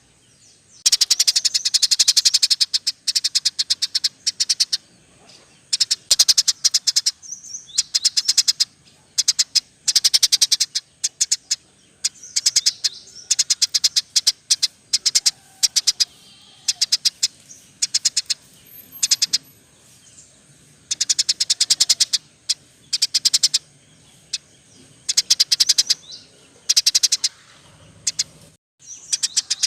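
Small songbirds chattering in rapid trilled bursts of high chirps, each burst a second or two long with short pauses between, a song-training (masteran) recording that mixes canary, lovebird and Eurasian tree sparrow.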